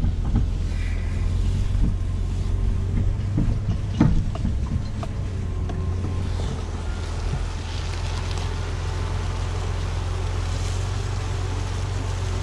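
Jeep Cherokee engine running steadily at low speed while pulling a loaded log arch over a rough forest trail, heard with knocks and rattles from the vehicle jolting over the ground. A sharp clunk stands out about four seconds in.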